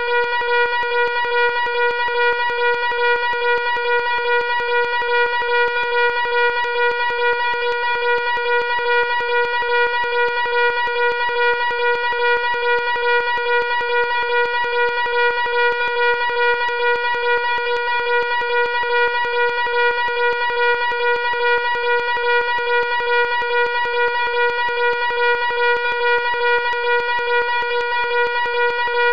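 Loud fire alarm horn sounding continuously: one steady buzzing tone with a fast, even flutter.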